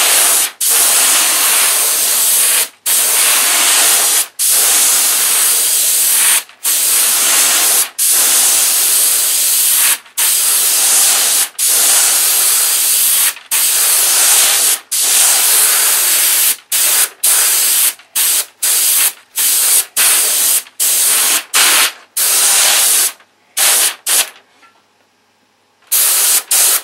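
Airbrush spraying a coat of blue paint: a loud, even hiss broken by many short gaps where the trigger is let off, the gaps coming more often in the second half. It stops with a few seconds to go, then one last short burst near the end.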